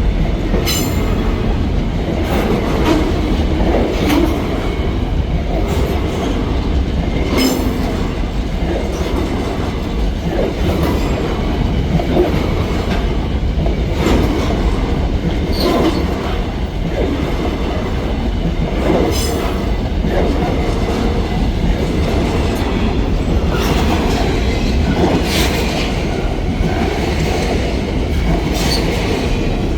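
Freight train's grain wagons rolling past in a steady rumble, with irregular clicks of wheels crossing rail joints and now and then a brief squeal of steel wheels.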